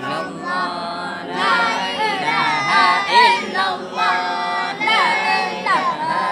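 A group of voices chanting Islamic dzikir together in overlapping sing-song lines, some notes held.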